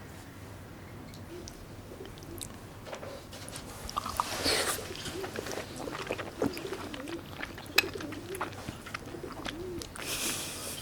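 A dove cooing low and repeatedly in the background, with scattered clicks and rustles of food being handled and eaten.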